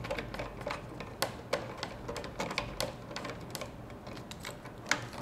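Irregular small clicks and taps of an Ethernet cable's plastic RJ45 plug being handled against the plastic cable glands of a switch enclosure, with one slightly louder click near the end.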